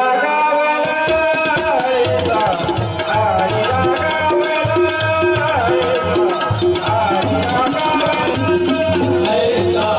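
Marathi bhajan music in an instrumental passage between sung lines: a sustained melody line over tabla and rattling percussion keeping a steady, brisk beat.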